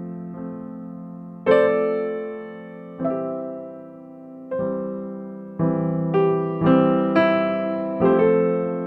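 Background music: piano chords struck one after another, each left to ring and fade, coming quicker in the second half.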